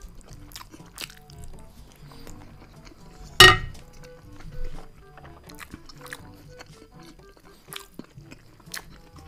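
Close-up chewing and mouth clicks over soft background music. About three and a half seconds in, a wooden spoon is set down sharply on a ceramic plate, the loudest sound.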